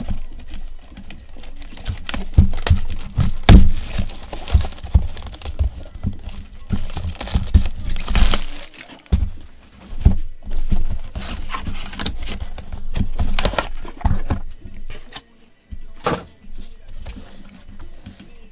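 Plastic wrapper crinkling and tearing as a sealed box of football trading cards is unwrapped and opened, with rustling and short sharp clicks from handling the cardboard.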